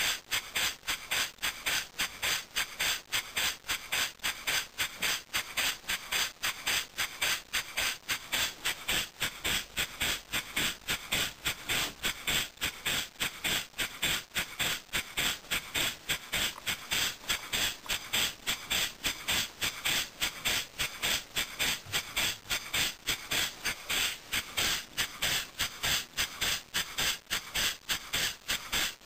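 Homemade single-cylinder oscillating (wobbler) model engine with a 3/4-inch aluminium piston, running steadily and exhausting in rapid, even hissing puffs.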